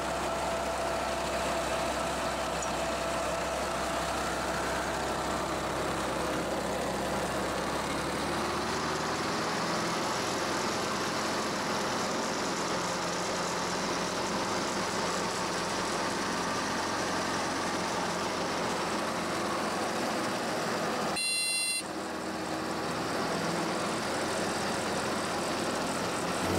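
An engine running steadily with a constant drone. About 21 seconds in, a brief high tone and a short break interrupt it.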